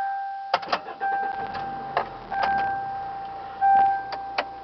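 The Toyota Corolla's electronic dashboard warning chime sounding a steady tone in several stretches of about a second each, broken by short clicks from the key and switches.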